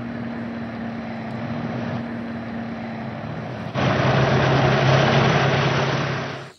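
Dubbed tank engine sound effect: a steady engine rumble with a low hum, which gets much louder about four seconds in as the tank moves off, then cuts off abruptly near the end.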